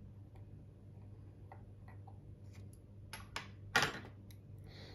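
Small metallic clicks and taps of watchmaker's tools and tiny parts on a mechanical watch movement. A few faint ticks build to a sharper click about four seconds in, followed by a short soft rustle near the end.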